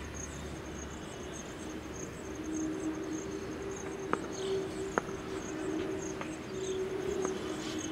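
Insects chirping in a steady, fast-pulsing high trill, over a low steady hum, with two sharp knocks about four and five seconds in.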